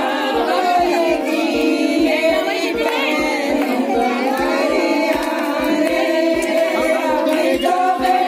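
Music with singing that bends in pitch, over long held notes and a steady beat of about three pulses a second.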